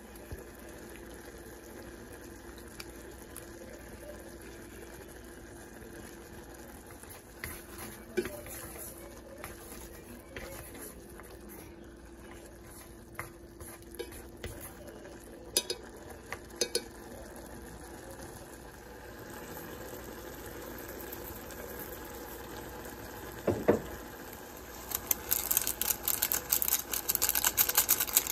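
Instant noodles simmering in a stainless steel saucepan while wooden chopsticks stir them, with scattered clicks and knocks of the chopsticks against the pot. Near the end, a seasoning packet is shaken over the pot in a quick run of crinkling and ticking, the loudest part.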